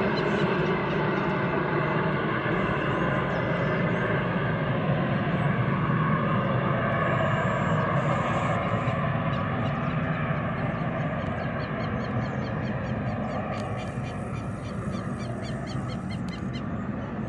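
Twin turbofan engines (Pratt & Whitney Canada PW615F) of a Cessna Citation Mustang business jet climbing away after takeoff. A steady jet noise heard from the ground, fading slowly over the last few seconds as the aircraft recedes.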